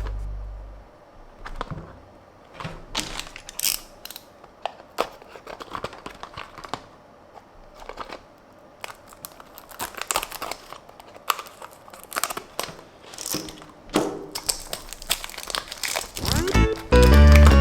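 Packaging of a Tomica die-cast toy car being handled and opened: a scattered run of crinkles, crackles and small clicks, like box card and plastic wrap being torn and crumpled. Background music fades out in the first second and comes back in near the end.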